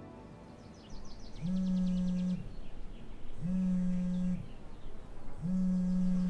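Mobile phone on vibrate buzzing against a bedside table, in on-off pulses of about a second, three times: an incoming call.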